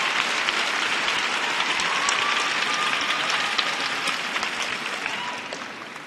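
Arena crowd applauding a figure skater as she takes the ice after being announced, the clapping dying away near the end.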